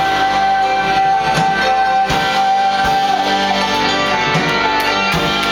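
Instrumental music closing a song: plucked guitar with one long held high note that slides downward about three seconds in.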